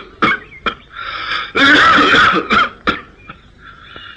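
A person making non-speech vocal sounds, coughing or laughing in a run of short bursts, with a longer, loud burst about a second and a half in.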